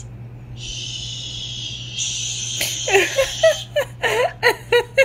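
A high, steady tone for about two seconds, then rapid high-pitched giggling laughter in short bursts from about three seconds in.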